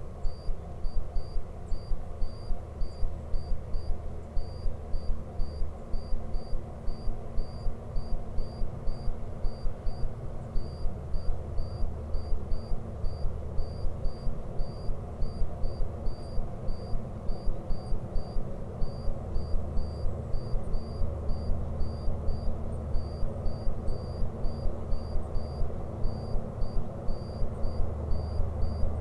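An insect chirping steadily and evenly, about three short high chirps a second, over a steady low rumble.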